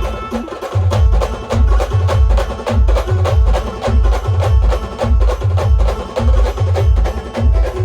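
Live band music with no singing: a deep bass drum beats about twice a second, coming in a little under a second in, under fast clicking percussion and a sustained melody line.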